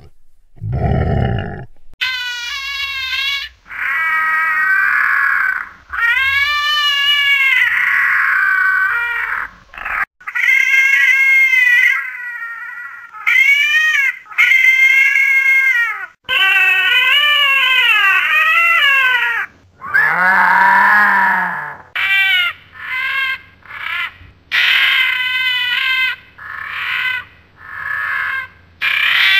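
A cat meowing again and again: long drawn-out meows that mostly rise and then fall in pitch, with a run of shorter meows near the end. A brief low rumble opens it.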